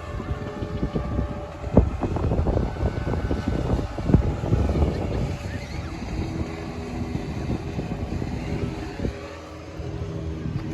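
Wind rumbling on the microphone, with a few knocks in the first half. From about the middle a steady engine hum runs underneath.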